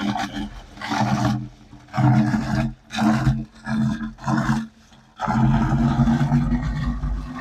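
Water poured from a five-gallon bucket into an old well casing, falling down the shaft with a deep, hollow roar. The roar comes in surges at first, drops out just before five seconds in, then runs steady.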